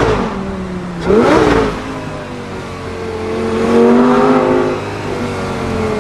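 Lamborghini Gallardo Spyder V10 revved in two quick throttle blips, the first right at the start and the second about a second in, each falling back to idle, then a slower, gentler rise and fall in revs around the middle before settling to a steady idle.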